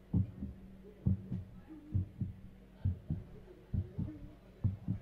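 Low drumbeats in a repeating pattern: two quick thumps about once a second, over a steady low hum.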